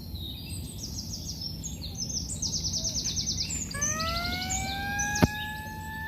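Small birds chirping in rapid high trills. About two-thirds of the way in, a steady droning tone slides up in pitch and then holds, and a single sharp click sounds near the end.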